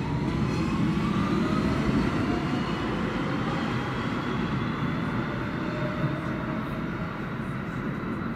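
R160 subway train accelerating, its traction motors giving a whine of several tones that rises in pitch over the first couple of seconds and then levels off, over the steady rumble of the wheels on the rails.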